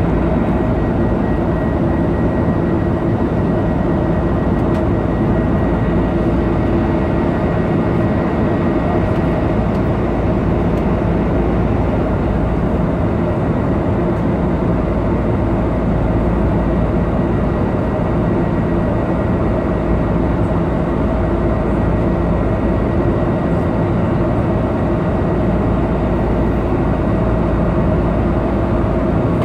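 Steady airliner cabin noise after takeoff: the constant drone of jet engines and rushing air heard from inside the cabin, with a few steady hum tones. A faint high tone fades out about ten seconds in.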